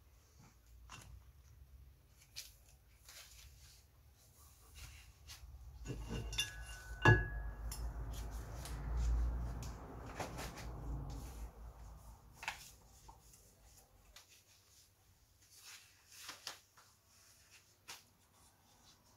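Objects being handled and set down on a metal drill press table: scattered clicks and knocks, with one sharp clink about seven seconds in that rings briefly, amid low rumbling handling noise for a few seconds.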